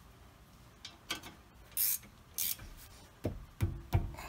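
Hands and a tool working on a rear disc brake caliper assembly: a few short metallic scrapes and rubs, then three dull knocks in the second half, the last one the loudest.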